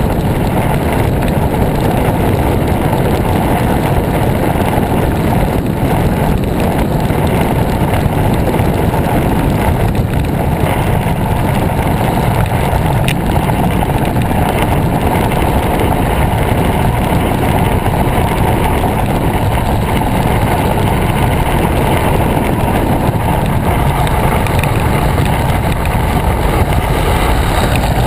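Steady wind noise buffeting the microphone of a handlebar-mounted camera on a moving bicycle: a loud, even rush, deepest at the low end, with no engine or other pitched sound in it.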